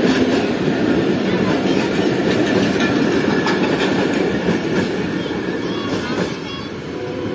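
Pakistan Railways passenger coaches running past on the track, a steady rumble and clatter of wheels on the rails that fades as the last coach goes by about six seconds in.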